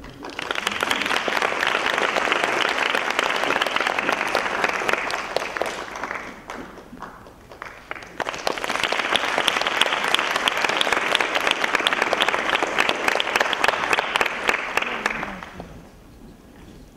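Audience applauding in two spells: clapping for about six seconds, dipping briefly, then rising again for about seven seconds before fading out near the end.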